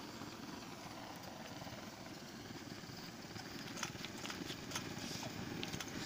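Gas blowtorch burning with a steady hiss, used for heat-shrinking a cable termination, with several sharp clicks and taps in the second half.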